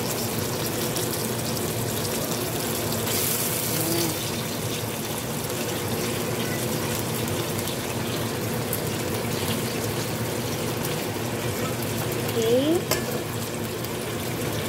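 Tomato, onion and garlic sauté sizzling and bubbling steadily in a stainless steel frying pan as whole fish are laid into it, with a brief louder surge of sizzle about three seconds in. A short rising squeak comes about twelve seconds in.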